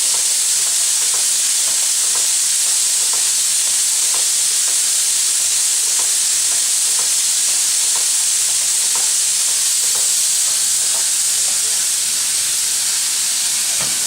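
Soviet L-class steam locomotive L-4600 standing with steam hissing steadily. A faint tick comes about once a second underneath.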